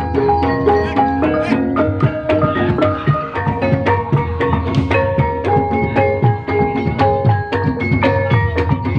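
Gamelan music accompanying an ebeg dance: metallophones ring a repeating melody of held notes over regular kendang drum strokes.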